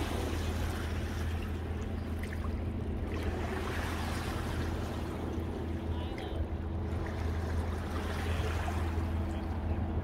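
Steady low engine drone of a boat out on the lake, with small waves lapping at a stone lakefront wall and some wind on the microphone.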